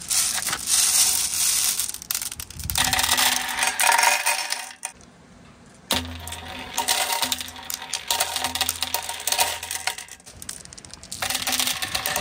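Marbles rolling and clattering down a handmade wooden marble run, in spells of a few seconds with a short pause about five seconds in.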